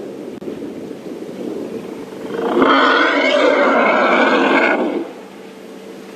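An African elephant giving one loud, harsh trumpeting call about two and a half seconds long, starting a couple of seconds in.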